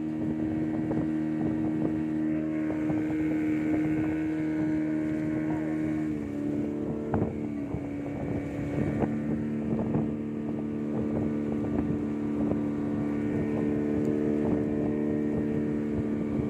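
Outboard motor of a small open boat running steadily under way, its note shifting about six seconds in, with wind on the microphone.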